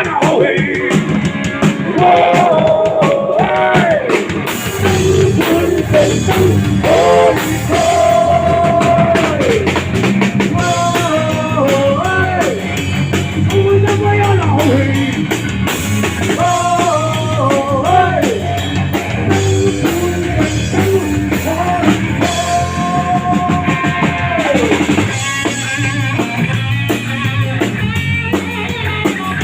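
Rock band playing a song: a drum kit and guitars under a sung melody with long held notes that slide down at their ends.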